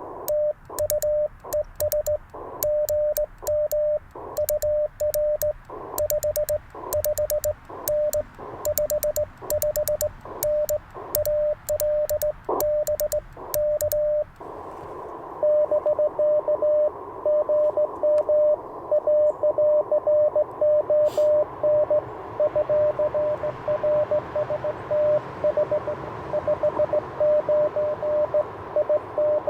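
Morse code on an Icom IC-705. For about the first half, the operator sends on an N3ZN ZN-SS sideswiper (cootie) key: a keyed sidetone beeps with the key's mechanical clicks on each element. Then the rig switches to receive, and another station's Morse comes through at a similar pitch over band hiss.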